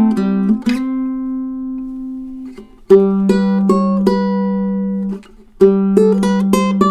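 Tenor ukulele with a figured koa body, a redwood top and low-G fluorocarbon strings, played solo in an improvised, unamplified piece. A note is left ringing and fading for about two seconds, then picked melody notes sound over a ringing low note. The sound cuts out briefly twice.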